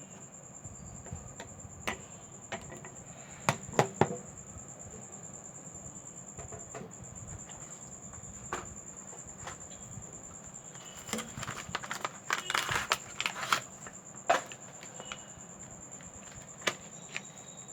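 Small hand tools clicking and tapping against a smartphone during a display replacement: scattered sharp taps, with a busier run of clicks and scraping about two-thirds of the way through. A steady faint high-pitched whine runs underneath.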